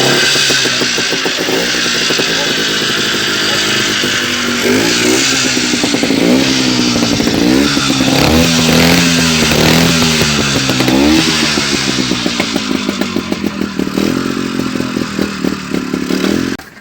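IZh Planeta 5 single-cylinder two-stroke motorcycle engine running after being kicked into life, revved up and down several times. Near the end the engine note turns uneven and pulsing before it cuts off.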